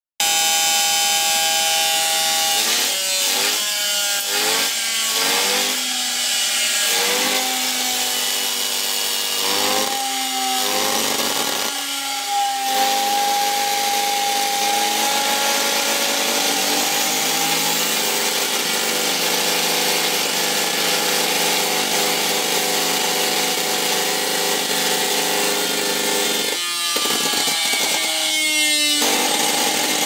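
Bare vacuum cleaner motor running at high speed, fed through a variac and step-up transformer at well over its rated voltage, straight to the brushes. Its whine swings up and down in pitch several times in the first dozen seconds, holds steady for about ten seconds, then changes again near the end.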